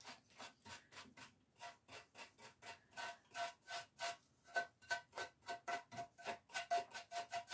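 Wax brush swishing quickly over a lamp's surface, working in antiquing wax: a steady run of short, soft brushing strokes, about three to four a second, with a faint squeak on some strokes from about halfway.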